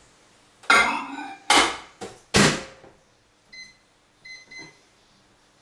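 Countertop microwave oven being loaded and started: three sharp clunks as a bowl goes in and the door is shut, then three short beeps from the keypad as the time is set.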